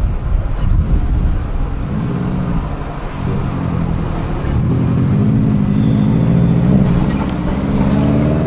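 Road vehicle engines pulling away and accelerating across the tracks, their pitch shifting as they gain speed, after a deep low rumble that fades over the first couple of seconds.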